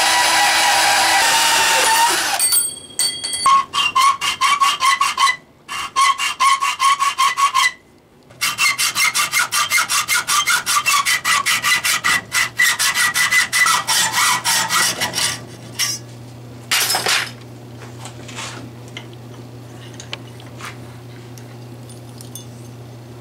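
A power tool running steadily for about two seconds and stopping, then a hand hacksaw sawing through a coil of wound stainless steel wire clamped in a vise, in quick, even strokes with two short pauses, until about fifteen seconds in. After that a brief scrape and a few light handling clicks over a low steady hum.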